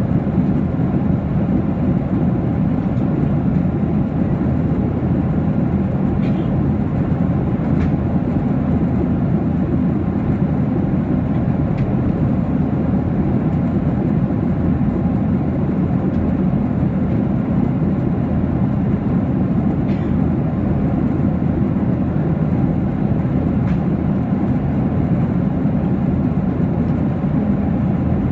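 Steady cabin noise inside a Boeing 737-800 in flight: the hum of its CFM56 turbofan engines and the rush of air over the fuselage, low-pitched and unchanging.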